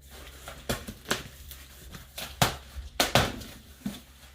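Metal tweezers picking and scraping at a taped cardboard box: a string of irregular sharp clicks and short scratches, the loudest about two and a half and three seconds in.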